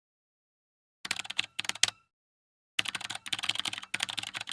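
Rapid, dense clicking in two bursts, the first about a second in and the second from about three seconds in, with near-silence between them.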